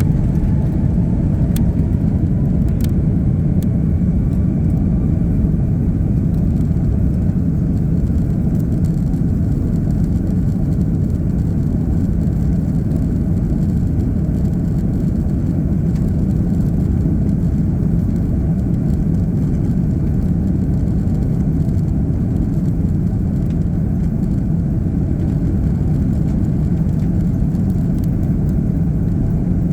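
Airbus A330 with Rolls-Royce Trent 700 engines heard from inside the cabin: a steady, loud low rumble of engines and airframe, with a thin whine rising in pitch over the first couple of seconds and two small clicks.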